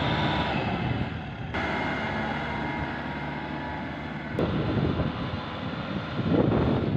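Kubota M6040SU tractor's diesel engine running steadily under load as it hauls a laden trailer through a muddy rice field. The sound shifts abruptly twice, rougher and choppier in the last few seconds.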